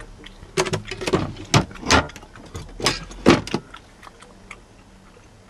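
Wooden cupboard doors and their contents being handled: a quick run of sharp knocks and clacks over about three seconds.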